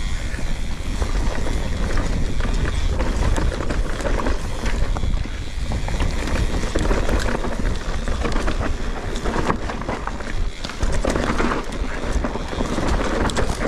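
Mountain bike riding fast down a dirt and root trail: wind buffeting the camera microphone as a heavy rumble, with tyres on loose dirt and the bike rattling and knocking over bumps and roots.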